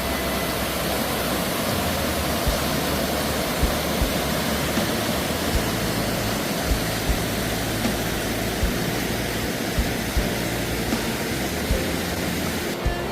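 Waterfall rushing steadily, a dense even roar of falling water. Background music with a soft low beat runs faintly underneath.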